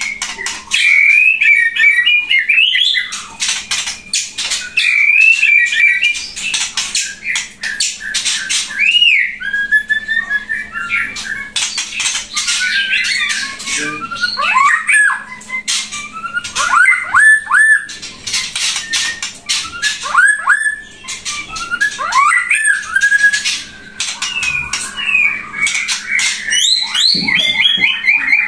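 Pasaman-type white-rumped shama (murai batu) singing loudly and without pause. Its song mixes fast rattling chatter with clear whistles and sharp downward-sweeping notes.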